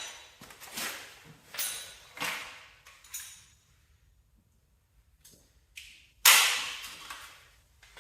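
Impact wrench run in several short bursts, driving bolts home, then a longer burst about six seconds in.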